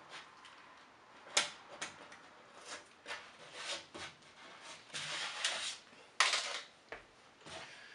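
Utility knife scraping and peeling the face paper off drywall around a patch hole: a string of short scratchy scrapes and tears, one longer scrape about five seconds in, and a sharper, louder scrape or knock just after six seconds.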